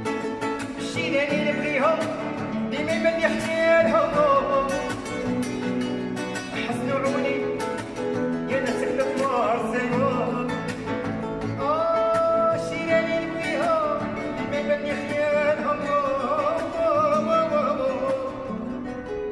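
Background music: a song with plucked-string accompaniment and a wavering melodic line over it.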